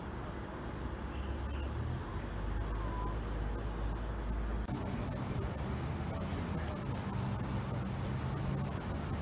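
Steady high-pitched drone of insects, with a low rumble underneath that stops abruptly about halfway through.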